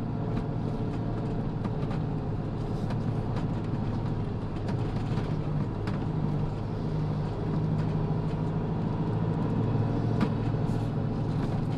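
Motorhome driving along a road, its engine running with a steady low drone and road noise, heard from inside the cab.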